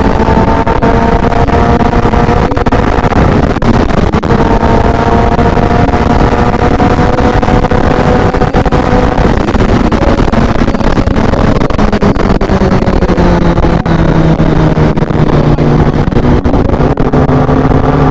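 Kawasaki ZX-10R inline-four running at highway speed through its new exhaust, heard over heavy wind and road rush. About twelve seconds in the engine pitch falls and settles lower as the bike slows.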